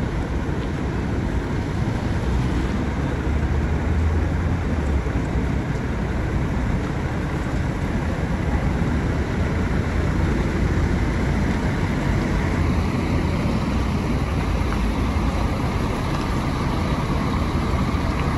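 Scania K400 coach's six-cylinder diesel engine running as the bus pulls away and drives slowly past, a steady low rumble that is strongest a few seconds in.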